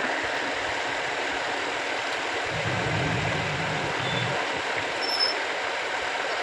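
Electric water pump motor running steadily, with a noise coming from inside it. A lower hum joins in for about two seconds midway.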